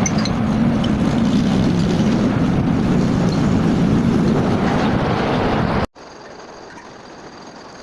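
Metalworking machinery running steadily with a heavy, even noise. About six seconds in it cuts abruptly to a much quieter steady machine hum with a thin high whine.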